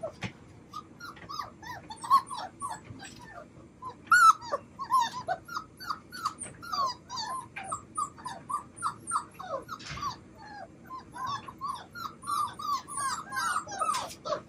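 Labrador retriever puppies whining and yipping: many short, high squeals in quick succession, several pups at once.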